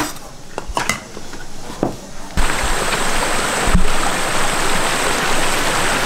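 A few light clinks of dishes, then, about two and a half seconds in, a steady rush of water noise starts suddenly and carries on evenly.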